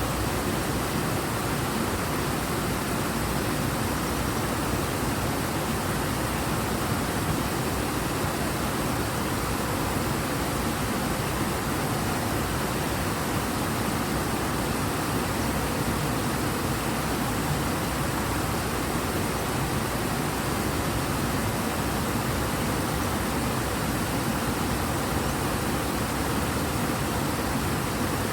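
Fast, high river water rushing in a steady, unbroken roar of noise.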